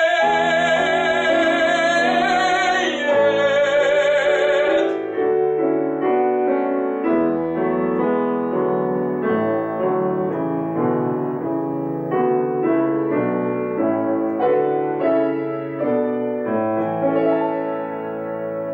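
Classically trained singer holding the final note of a romance with vibrato over piano accompaniment. About five seconds in the voice stops and the piano plays on alone in a closing passage.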